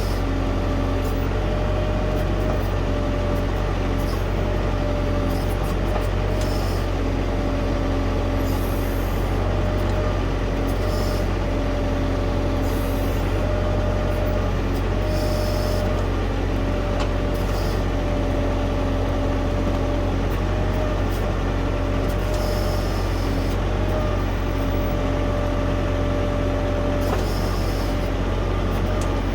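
Tractor diesel engine running steadily while driving the hydraulics, with a whine that comes and goes and brief hissing bursts every couple of seconds.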